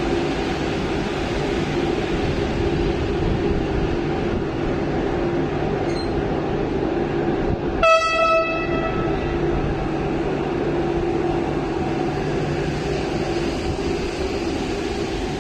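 Passenger train rolling slowly through the station, a steady rumble of wheels and coaches. About eight seconds in comes one short horn blast that rings on briefly.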